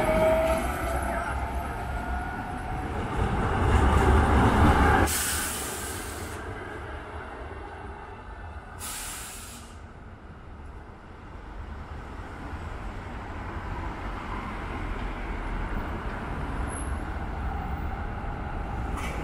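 Tatra KT4 tram passing close, its wheels rumbling on the rails and its running gear droning loudly, cut off suddenly about five seconds in. Then quieter street traffic rumble with two short hisses and a tram rolling in the distance.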